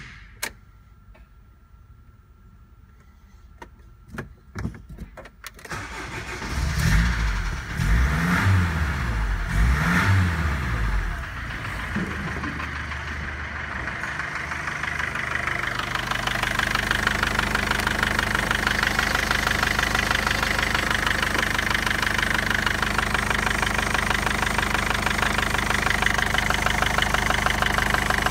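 Mercedes-Benz OM611 2.2 CDI four-cylinder diesel engine: a few sharp clicks, then it runs up and down in pitch about three times and settles into a steady diesel idle with an even, fast ticking that grows louder and holds from about sixteen seconds in.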